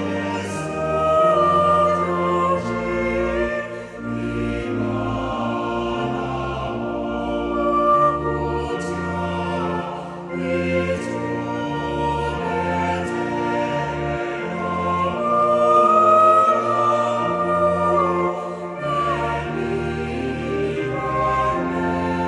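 Mixed choir of men's and women's voices singing a Luganda hymn in parts, phrases sustained with changing chords.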